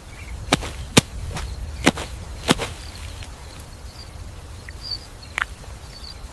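A series of sharp, whip-like cracks: four in the first two and a half seconds and a weaker one at about five and a half seconds, over a steady low rumble.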